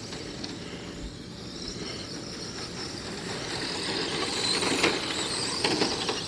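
Radio-controlled race cars running laps, their motors and tyres making a steady high-pitched whine that grows louder about four seconds in as the cars come close. Two brief clicks or knocks near the end.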